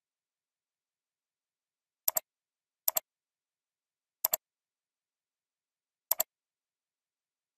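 Computer mouse clicking four times, each click a quick pair of ticks from the button pressing and releasing, with dead silence between.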